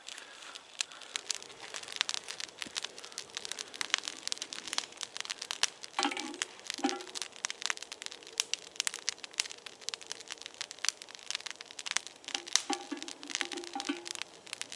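Campfire of fatwood, birch bark, feather sticks and thin dry twigs crackling and popping as the kindling catches, in fast irregular snaps. A few short low squeaky tones are heard about six seconds in and again near the end.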